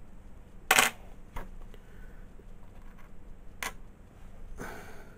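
Coins being handled: a sharp metallic clink a little under a second in, lighter clicks about half a second later and again near the four-second mark, then a short rustle near the end.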